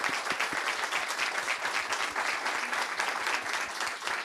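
Small audience applauding: many people clapping at once, a dense, steady patter of claps.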